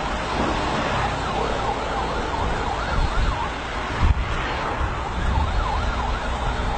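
Emergency vehicle siren yelping, its pitch sweeping quickly up and down over and over, over a heavy low rumble of wind and road noise from a moving vehicle. A single thump about four seconds in.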